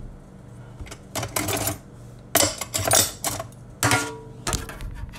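Rapid clicking and clattering of hard objects at a kitchen counter, in four short bursts about a second apart, the loudest near the middle.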